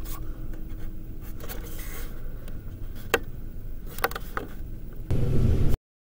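Handling noise from a handheld camera: rubbing and a few sharp clicks over a low rumble. About five seconds in it changes to a louder low rumble inside an elevator car, then the sound cuts off abruptly.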